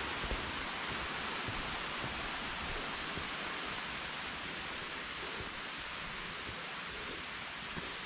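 Waterfall cascades rushing as a steady, even hiss of water, with a thin steady high tone above it.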